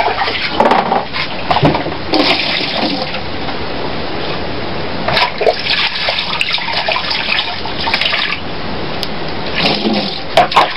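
Water poured from a plastic dipper, splashing into a plastic basin in a steel sink as fish is rinsed. Louder splashing comes in stretches, with a few sharp knocks near the end.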